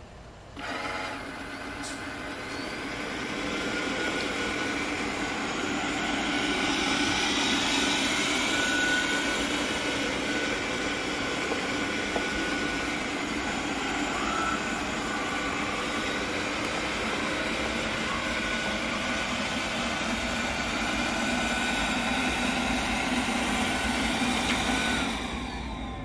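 엄선 robot vacuum cleaner running steadily as it drives itself back to its charging dock. It starts about a second in, grows louder over the next few seconds, and drops off near the end as it reaches the dock.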